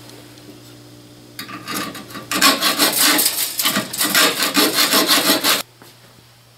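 Hacksaw cutting through a thin metal pinwheel shaft. A few light strokes start about a second and a half in, then a run of louder, quick back-and-forth strokes, which stops suddenly near the end.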